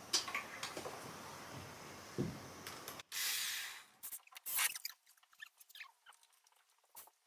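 Red corded electric drill driving a screw into a wall-mounted rack bracket, running in one short burst of about a second some three seconds in. Scattered small clicks and taps of the bracket and screws being handled follow.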